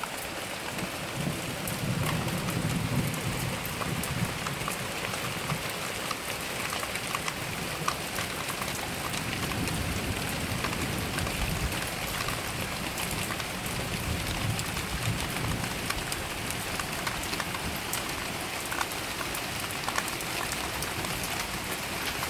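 Heavy rain falling steadily and pattering on surfaces, with many sharp drop ticks. A low rumble of thunder swells about two seconds in and again around ten seconds in.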